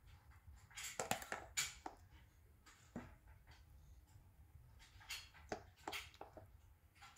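Metal spoon clinking and scraping faintly against a ceramic plate while food is spooned onto it: a cluster of clicks about a second in, a single click near the middle, and another cluster a little after five seconds.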